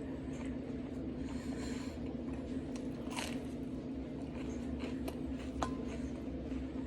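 Close-up chewing and biting as a person eats scrambled eggs and an English muffin, over a steady low hum, with a few short light clicks a few seconds in.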